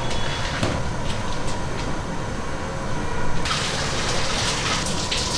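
Steady background rumble with a few light clicks of a wire-mesh strainer against the pot. About three and a half seconds in, a wet hiss starts as freshly boiled, dripping rice is tipped from the strainer into the aluminium biryani pot: the final layer of full-boiled rice for dum biryani.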